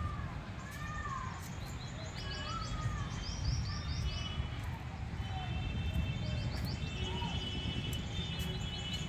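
Several birds calling in the trees: short arched whistled calls repeated over the first few seconds, and quick runs of high chirps that come and go, over a low steady outdoor rumble.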